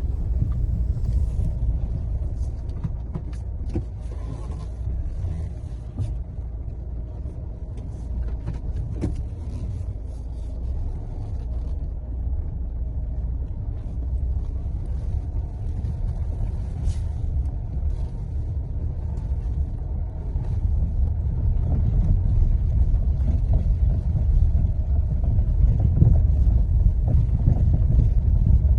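Mahindra XUV700 driving over rough off-road ground: a steady low rumble with a light hum and vibration, and scattered small knocks. Customers take the hum for a suspension noise problem. It grows louder over the last several seconds.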